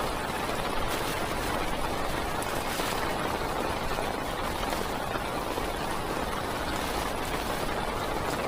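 Heavy rain falling on a parked car's roof and windows, heard from inside the car as a steady, dense patter with scattered sharper drop ticks.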